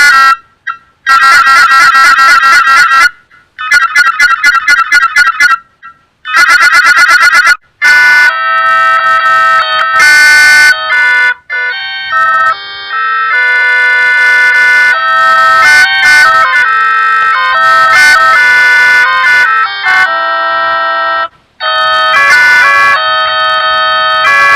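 Panasonic KX-TG1311 cordless phone ringtones. First a rapid electronic trill rings in three bursts with short gaps; from about eight seconds in, a melodic electronic ringtone plays a tune of held notes.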